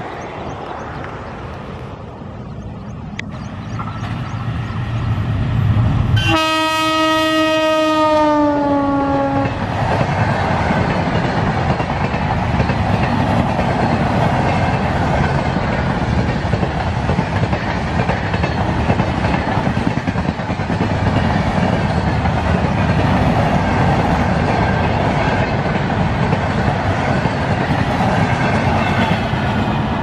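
A passenger train passing at speed behind an electric locomotive: its rumble swells as it approaches, the locomotive's horn gives one long blast of about three seconds that drops in pitch near its end, and the wheels of the coaches run steadily on the rails for the rest.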